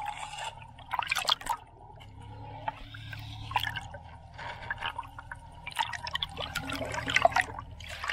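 Water trickling and dripping in irregular small splashes over a faint low hum.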